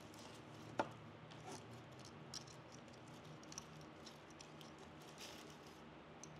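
Fresh evergreen sprigs crackling and rustling faintly as hands press and tuck them into a moss-covered wreath form, in a scatter of small crisp ticks with one sharper click about a second in.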